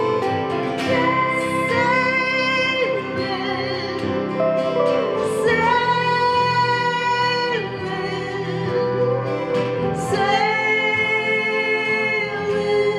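A woman singing a song to acoustic guitar accompaniment, holding long notes about halfway through and again near the end.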